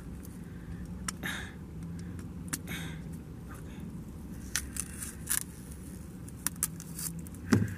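Thin plastic wrapping being peeled by hand off a small headphone adapter: scattered crinkles and little tearing clicks over a steady low hum.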